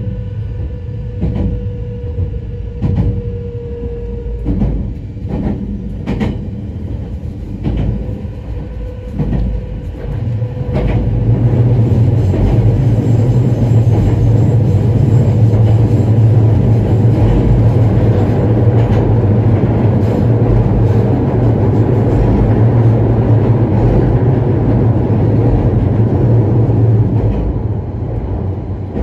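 Nagano Electric Railway's former Odakyu HiSE Romancecar train running on the line, heard from inside the car: wheels click over rail joints, often in pairs, over a steady running rumble and a faint hum. About ten seconds in, the running noise grows much louder and turns into a dense, steady roar with a deep drone, easing off shortly before the end.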